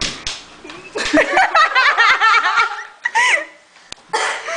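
People laughing: a quick run of high-pitched giggles, with a couple of sharp knocks at the start.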